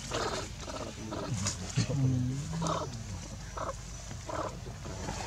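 Macaque monkeys vocalizing: a string of short calls, with a low, wavering grunt lasting about a second starting about two seconds in.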